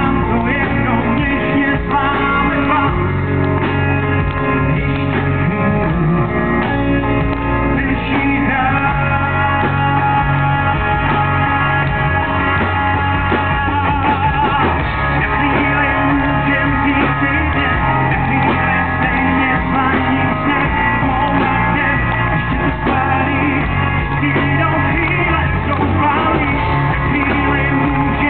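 Live rock band playing a song: a man sings lead over drums and electric guitar.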